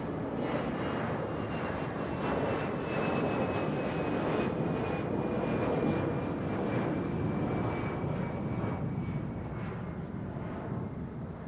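Aircraft engine noise passing: a wash of engine sound that swells to a peak around the middle and eases off near the end, with a high whine slowly falling in pitch.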